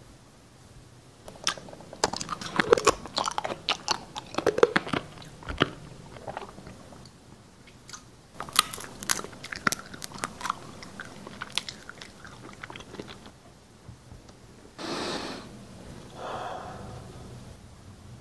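Close-miked crunchy chewing and biting in two bouts of dense crackling crunches. Near the end come two short breathy swells of noise.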